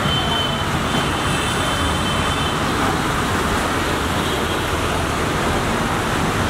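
Traffic in heavy rain on a waterlogged road: a steady, loud rush of water and rain mixed with vehicle engines as cars and auto-rickshaws drive through floodwater. Faint thin high tones sound through the first two seconds or so.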